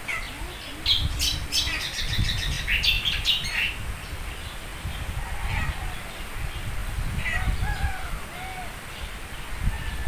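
Birds calling in a palm tree: a quick run of sharp, high chirps in the first few seconds, then a few short swooping calls, over a low rumble.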